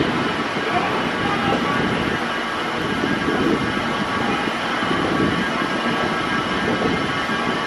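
Escalator running steadily as it carries the rider down, a continuous mechanical rumble with faint steady high tones over it.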